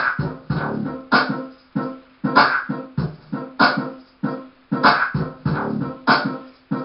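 Dance music with a steady beat, strong accented hits coming a little more than once a second.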